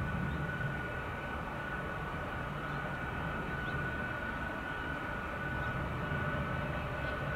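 Boeing C-17 Globemaster III's four Pratt & Whitney F117 turbofans running at low thrust as it lines up for take-off: a steady high whine over a low rumble.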